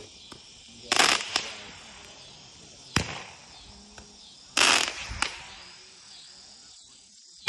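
Fireworks going off: four sharp bangs over about four seconds, the first and third longer with a noisy tail, the last a smaller crack.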